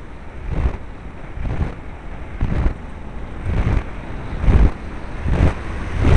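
Airflow rushing and buffeting over the microphone of a camera mounted on a flying RC plane, surging about once a second.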